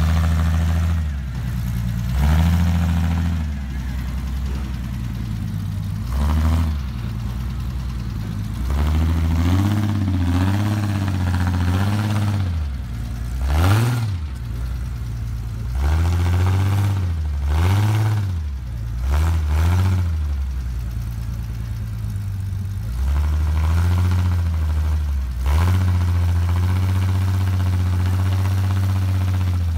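Rock crawler buggy's engine revving up and down in repeated bursts with short dips between, under load as it climbs over boulders, then running steadily over the last few seconds.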